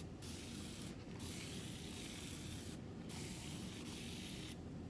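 Hair spray bottle spraying a water-based refresher onto the hair, in three long hisses of about a second or more each with short breaks between.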